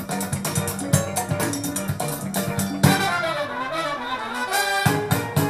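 Band music with drums and horns played back through a pair of Denon SC-7.5 bookshelf speakers whose woofers have been rebuilt with water-based liquid rubber. Regular drum hits run throughout, with a run of sliding horn notes about three seconds in.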